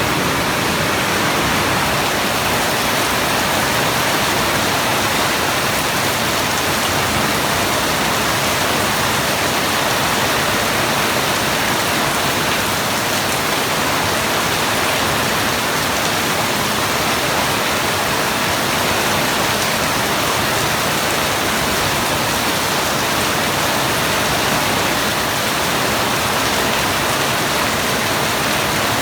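Steady heavy rain falling, a dense even hiss of drops with no single drops or thunder standing out.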